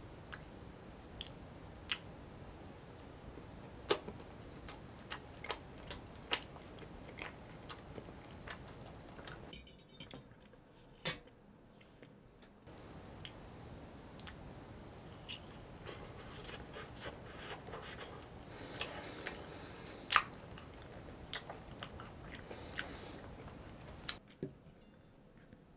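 Close-up chewing and biting of an ice cream bar with a crunchy coating: scattered sharp crunches as the shell breaks, between stretches of chewing. The sharpest crunch comes about twenty seconds in.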